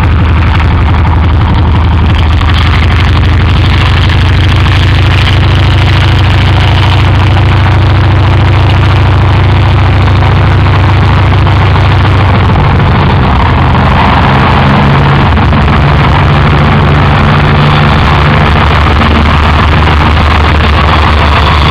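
Antonov An-2 biplane's nine-cylinder radial engine running with its propeller turning: a loud, steady drone whose pitch changes about halfway through.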